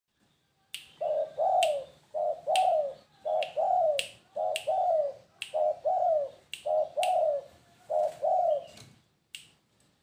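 Spotted dove (tekukur) cooing in a steady series of seven two-part coos, a short note then a longer falling one, about one a second. Sharp finger snaps fall between the coos, with a last snap near the end.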